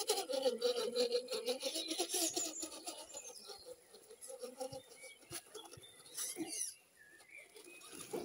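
Carson X-Crawl RC rock crawler's electric motor and gear train whining, the pitch wavering up and down with the throttle, over a fine crunching rasp from the tyres on dirt. It is loudest over the first few seconds and fades as the truck drives away.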